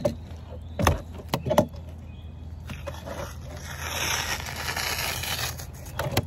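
A few sharp knocks of knife and fish on a cutting board during fish filleting, then about three seconds of scraping.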